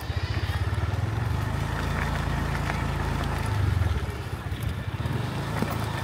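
A motor vehicle engine running close by, a steady low pulsing rumble.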